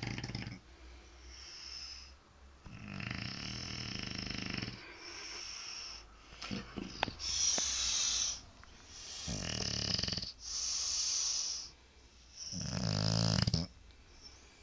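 A pet snoring in its sleep: buzzing, rattling snores alternate with hissing breaths, about four breath cycles, the last snore the loudest. A few short clicks come near the middle.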